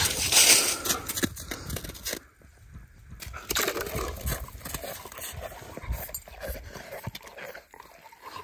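A German Shepherd sniffing and panting close by, with water and slush sloshing and dripping as an ice skimmer is worked in a fishing hole. The loudest moment is a rush of splashy noise in the first second.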